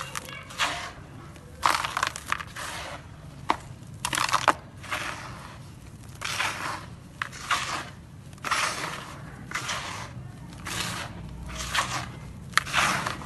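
Dry grey sand-cement chunks crushed and crumbled by hand, in a run of separate crumbling bursts about once a second.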